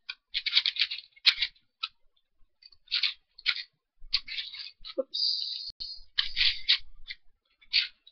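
An unlubricated plastic 5x5 puzzle cube turned by hand in quick bursts of clicking layer turns; its inner layers are clicky.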